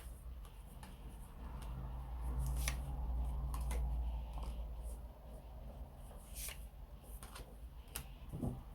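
Tarot cards being handled and drawn: scattered light flicks and taps of the cards, over a low hum that swells a couple of seconds in.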